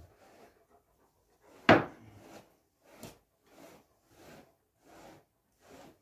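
A grooming brush drawn through a dog's shedding coat in steady strokes, about one every 0.7 seconds, with one sharp knock just under two seconds in.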